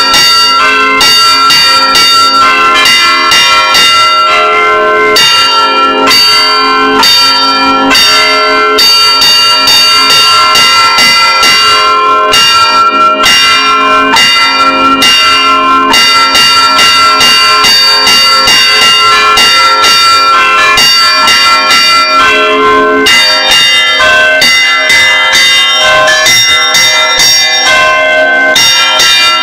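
Several church bells rung by hand in a fast Brazilian repique: rapid, continuous strokes over a wash of sustained ringing, loud and close from inside the belfry.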